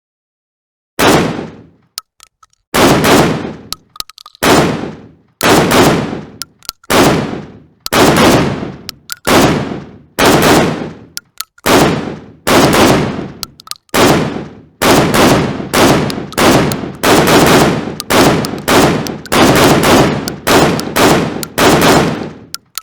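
AA-12 automatic 12-gauge shotgun firing full auto in short bursts of a few rapid shots each, about one burst a second, each ending in a short fading echo.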